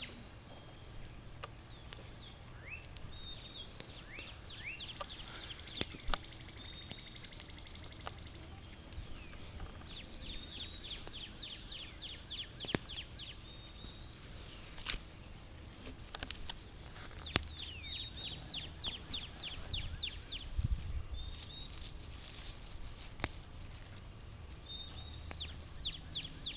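A songbird singing outdoors, repeating a song of quick downward-slurred notes every few seconds, with a few sharp clicks and a faint low hum behind it.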